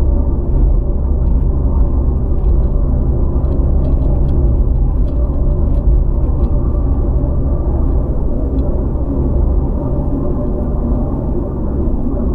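A Land Rover Freelander on the move: a steady low engine and road rumble, with faint light ticks scattered through the first two-thirds.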